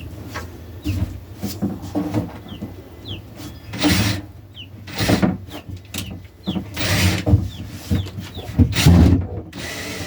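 Wood scraping and rubbing in several short bursts as a wooden nesting box is worked into place, with baby chicks peeping in quick, high falling chirps throughout.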